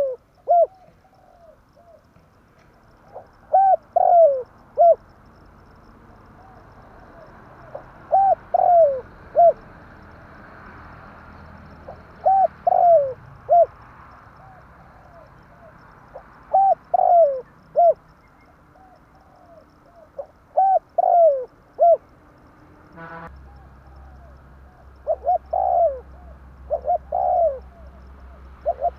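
Spotted dove cooing, repeating its phrase of several short falling coos about every four seconds. A click sounds about two-thirds of the way through, and a low hum continues after it.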